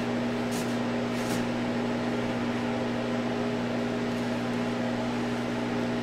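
Steady machine hum from a Harvest Right freeze dryer's running machinery, with two light metal scrapes in the first second and a half as a tray is slid out along its shelf.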